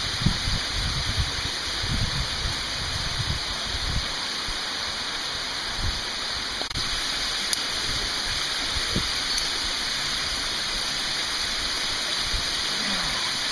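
Steady rush of water falling down the rock walls of a canyon, with low buffeting on the microphone during the first four seconds.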